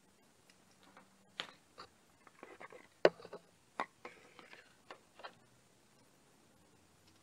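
Irregular small clicks and knocks of hands, tools and parts being handled at a motorcycle engine's cylinder head, the sharpest about three seconds in.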